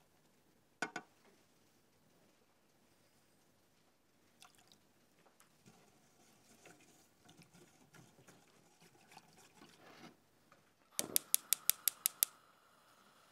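Faint kitchen handling sounds with a sharp click about a second in, then near the end a quick run of about eight sharp clicks, followed by a faint steady tone.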